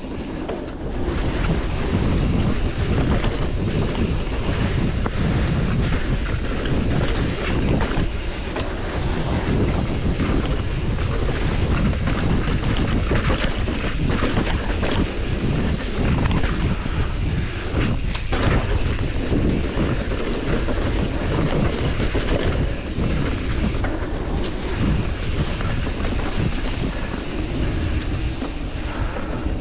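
Norco Torrent steel hardtail mountain bike riding a dirt singletrack: a steady rumble and rattle of the tyres and frame over dirt and roots, with wind buffeting the camera microphone.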